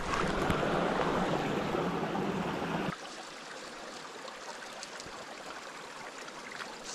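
Small rocky mountain stream running over stones. It is loud and close at first, then about three seconds in it drops suddenly to a softer, steady rush.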